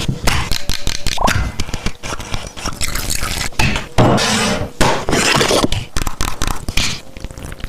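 Boxes and packaging being handled and opened: rapid rustling, crinkling and scraping, with clicks and clinks of small cosmetic containers knocking together.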